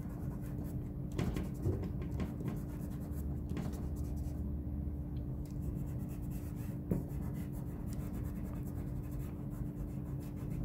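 Fingertips rubbing and smudging graphite on drawing paper, a soft dry scratching with a few light taps, over a steady low hum.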